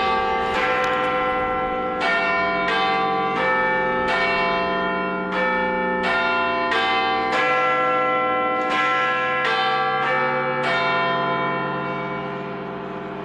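Bells struck one after another in a changing sequence of pitches, about one strike every two-thirds of a second. The last strike comes about eleven seconds in and rings out, fading.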